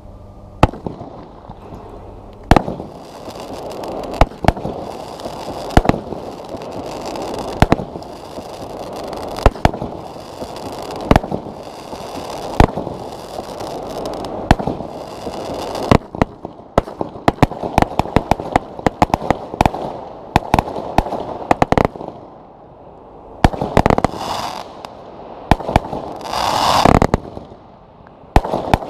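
A 102-shot 25 mm fireworks cake firing. At first a sharp report comes about every two seconds. From about halfway it turns into a rapid volley of several shots a second, with a steady hiss beneath and a louder rush of crackle near the end.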